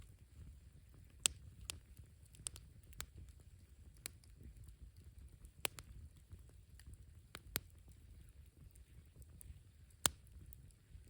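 Wood campfire crackling: irregular sharp pops and snaps over a low steady rumble, the loudest pops about a second in and near the end.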